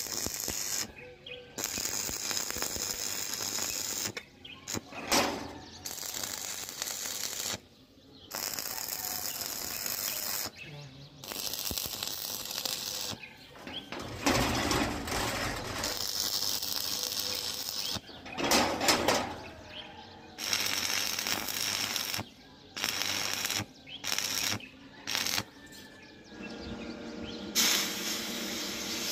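Stick-welding arc crackling and hissing in runs of one to a few seconds, cutting out and restarting about a dozen times as short welds are laid on a steel door latch.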